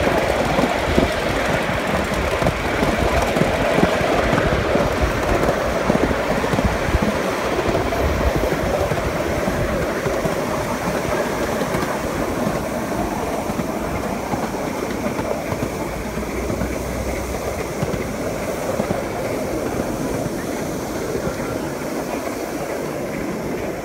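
Steam-hauled ride-on miniature railway train running along its track: a steady rumble and clatter of wheels on rail, gradually getting a little quieter toward the end.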